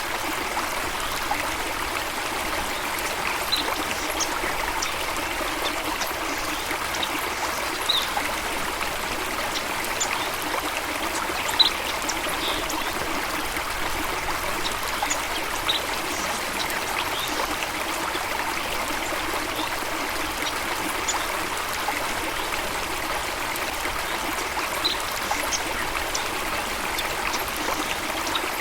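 Steady rush of running water, with short high bird chirps scattered over it every second or two.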